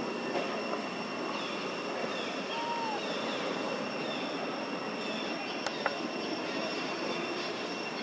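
Steady outdoor background noise, with a faint high steady tone, a few faint short chirps, and a single sharp click partway through.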